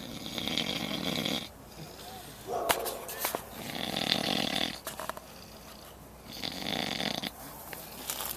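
A man snoring heavily in deep sleep: three long snores, about three seconds apart. The uploader puts the heavy snoring down to too much daytime drinking. A few sharp clicks fall between the first two snores.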